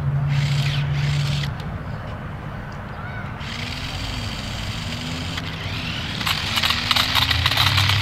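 A toy remote-control dirt bike's small electric motor whirring as it sets off across the pavement, with rapid clicking and rattling, growing louder over the last couple of seconds. A low steady hum fills the first second and a half.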